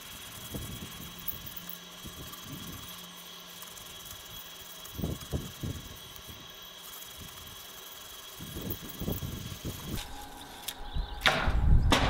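Cutting by hand into the base of a hard bay tree trunk: faint, irregular cutting strokes that grow louder, with sharp knocks near the end, over a faint steady background hum.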